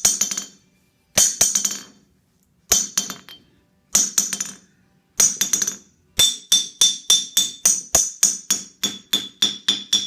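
Steel hammer striking an old anvil's face to test its ring: six separate blows about a second apart, each with a few quick rebound taps, then a fast run of about four blows a second. Each blow gives only a short, high ring that soon dies away, which the owner takes for an anvil that still doesn't ring as he'd like and is close to dead.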